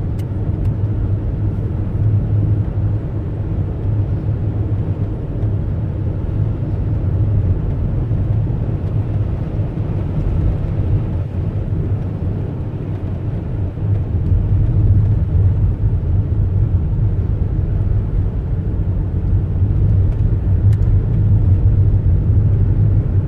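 A car driving through a snowstorm: a steady low rumble of road and engine noise that swells slightly in the second half.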